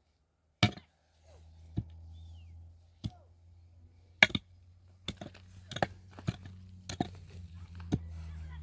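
Repeated sharp strikes of a hand tool, chopping or knocking: spaced about a second apart at first, then coming quicker, roughly two a second, in the second half. Under them runs a low steady hum.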